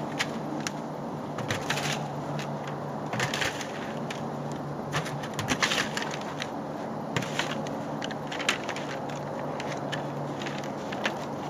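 Empty plastic feed pails knocking and clattering as they are stacked and carried, with footsteps crunching on snow: irregular clicks and knocks, thickest around the middle, over a steady low hum.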